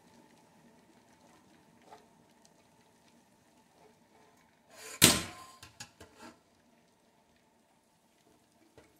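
A loud metallic clank about five seconds in, followed by a few lighter knocks: a metal spring clamp and brass tube being set down against a stainless-steel sink. A faint steady hum comes before the clank.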